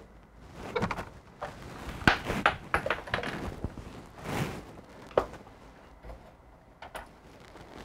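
Irregular knocks and clicks of objects being handled: a quick run of sharp knocks about two seconds in, and a single sharp click a little after five seconds.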